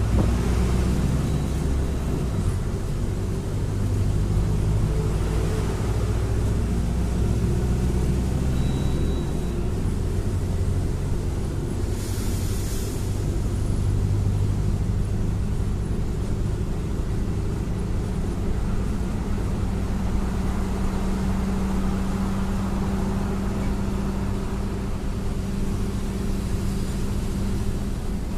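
Mercedes-Benz OF-1721 BlueTec 5 bus's four-cylinder turbodiesel engine running, its pitch shifting up and down over the first ten seconds and then holding a steady hum, with a brief hiss about twelve seconds in.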